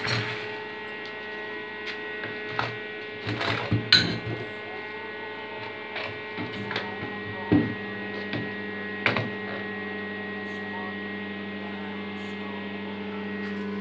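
Steady electrical mains hum, from the homemade spot welder's AC transformer, with scattered knocks and clanks of a claw hammer and steel plate being handled on the workbench. About six and a half seconds in, a deeper hum joins and holds.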